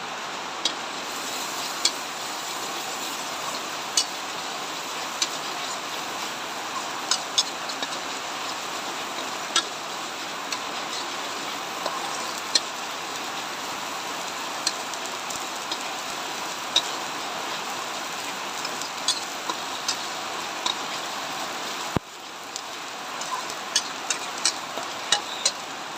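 Chopped shallots, garlic, chilli and tomato stir-frying in oil in a wok over high heat: a steady sizzling hiss with scattered sharp crackles and spatula clicks. The hiss drops suddenly about 22 seconds in and builds back up.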